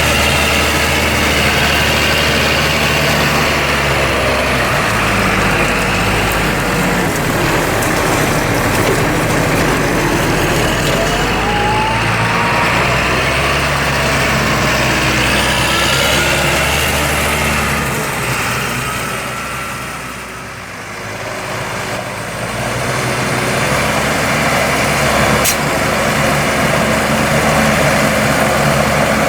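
Diesel tractor engines running steadily during a muddy potato harvest, with a few rising whines over the top; the sound dips about two-thirds of the way through, then builds again.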